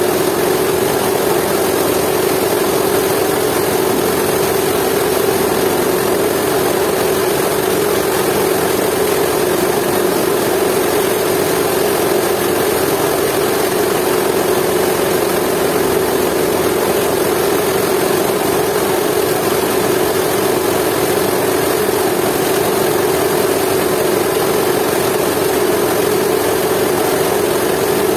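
Jiangdong 8 hp single-cylinder diesel engine running steadily, belt-driving a coffee grinder that is milling dried coffee beans.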